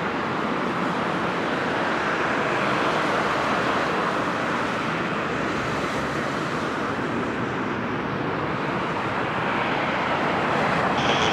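Steady rushing noise of a jet airliner's engines, with a high engine whine joining in just before the end.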